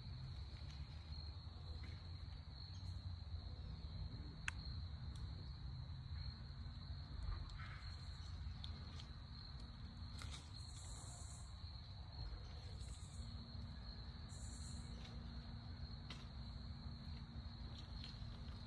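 Crickets trilling in one steady, unbroken high tone, with three short higher buzzes between about ten and fifteen seconds in, over a low background rumble. A single faint click comes about four seconds in.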